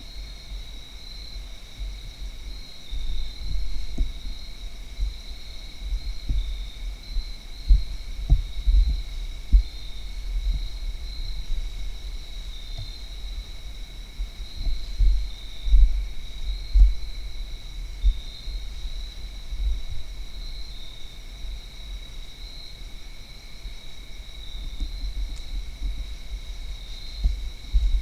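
Steady evening chorus of crickets or similar insects, a continuous high trilling, over irregular low rumbles and thumps that are louder than the insects.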